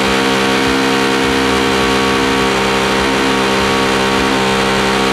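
Pneumatic air hammer with a roll pin punch bit running continuously against the bus's steel wall, a loud, steady buzzing hammer, driving rivets out from the inside.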